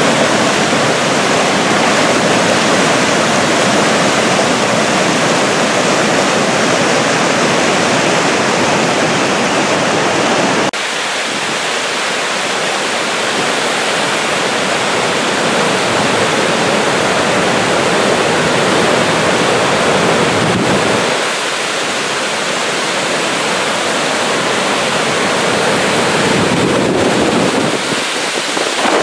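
Flood-swollen brook, overflowing from thaw and heavy rain, rushing through whitewater rapids over rocks: a loud, steady rush of water. About ten seconds in the sound steps down a little in level and loses some of its low rumble at a cut.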